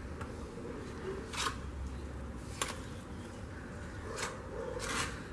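Mason's trowel scraping wet mortar onto the edge of a terracotta hollow-block panel: a few short, separate scrapes.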